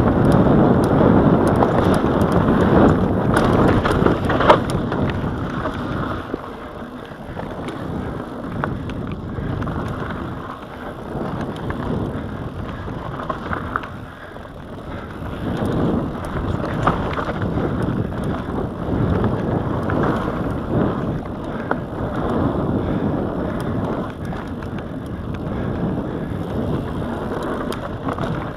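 Mountain bike rolling fast down a dry dirt trail: tyres rumbling and crunching over loose dirt, with rattles and clicks from the bike and wind buffeting the microphone. It is louder in the first few seconds, with a sharp knock about four and a half seconds in.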